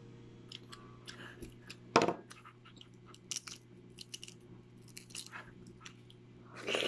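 Balut eggshell being peeled by hand: scattered small crackles and clicks of shell breaking away, with one sharper click about two seconds in and a longer rustling noise near the end.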